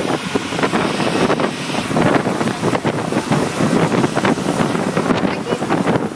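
Wind buffeting the microphone in loud, irregular gusts, with the rush of moving air at parasailing speed.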